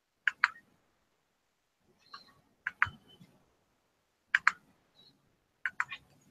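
Computer mouse clicking: four sharp double clicks, about a second and a half apart, with a few fainter ticks between them.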